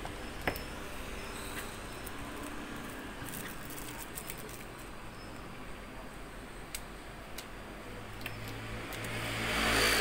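A few faint clicks from a laptop's optical drive and screws being handled, over a steady background hum. Near the end a passing vehicle's engine swells up and grows loud.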